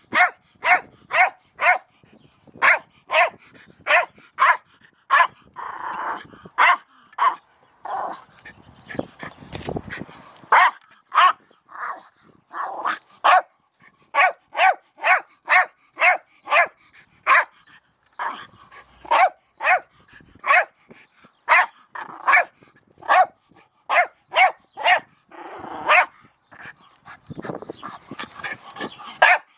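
Jack Russell terrier barking over and over in short, sharp barks, about two a second. A few stretches of noisier scuffling come between the runs of barks.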